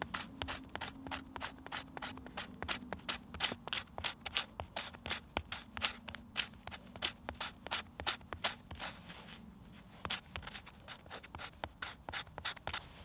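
Knife blade scraping birch bark in quick repeated strokes, about four a second, raising fine shavings for fire tinder; the strokes stop briefly about three-quarters of the way through.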